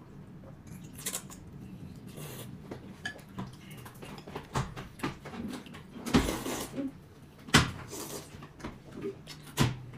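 Tableware clinking and knocking during a meal: utensils against bowls and dishes in scattered, irregular knocks, the loudest about six and seven and a half seconds in.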